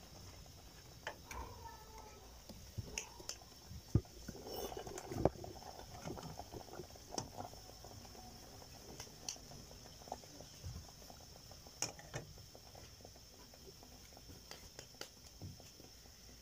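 Sweet andrasay dough deep-frying in hot oil in a metal karahi: a faint, steady sizzle with scattered crackles and pops, and a sharper click about four seconds in.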